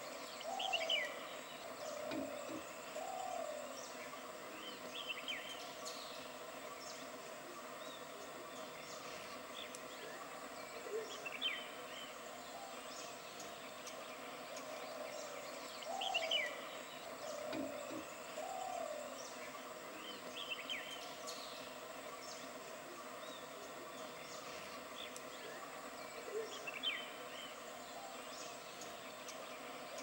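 Wild birds calling over a steady hiss: short, high, falling chirps every few seconds, and now and then a lower, rounded call of two notes.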